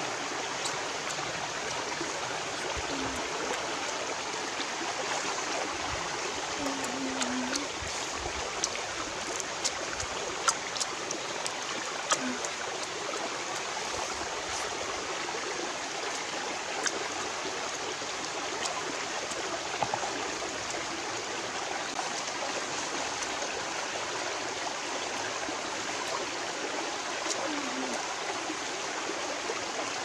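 Steady rushing of a small stream running over rocks, with scattered faint clicks and taps, most of them in the first half.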